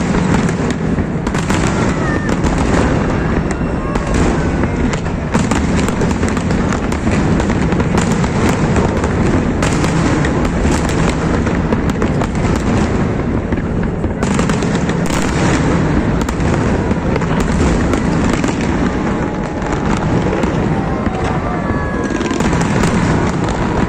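Aerial fireworks display: many shells bursting and crackling in rapid, overlapping succession, a continuous barrage with no pauses.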